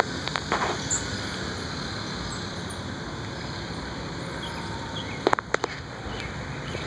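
Steady outdoor background noise, like distant traffic, with a few sharp clicks about half a second in and again around five seconds in.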